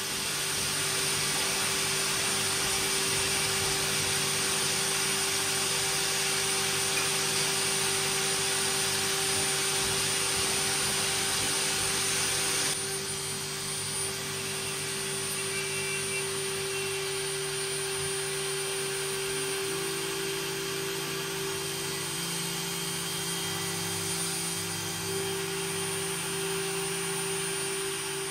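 Shaper Origin handheld CNC router running and milling wood: a steady high whine and hum over a hiss. About halfway through the hiss drops off abruptly and the sound settles lower and a little quieter.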